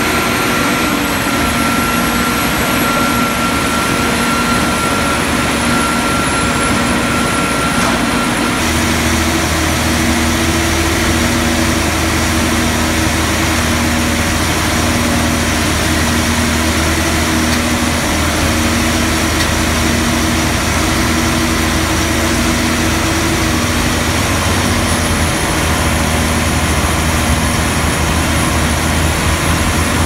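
Squash harvester running, a loud, steady machinery drone from its drive and conveyors, with a low hum that pulses about once a second. The sound changes abruptly about nine seconds in and becomes deeper.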